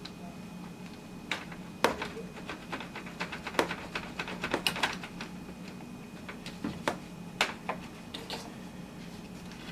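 Irregular sharp clicks and snaps of pliers cutting and working a plastic retaining clip loose, in two bunches, over a steady faint hum.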